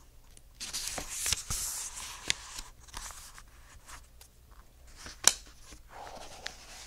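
Paper pages of a book being turned and handled, a crackly rustle lasting about two seconds, followed by quieter handling and a single sharp tap about five seconds in.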